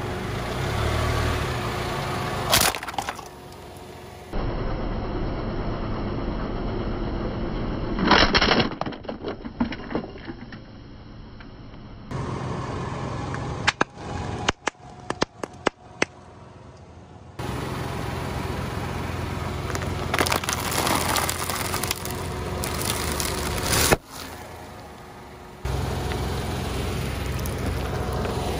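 A car tyre rolling slowly over objects and crushing them: a plastic toy truck cracking and breaking, then a quick run of sharp snaps and pops and more cracking, with the car's low rumble underneath.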